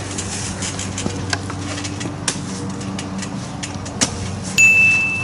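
A steady low hum with a few soft knocks, then near the end a single electronic beep: one steady high tone, the loudest sound here, that starts and stops sharply after about a second.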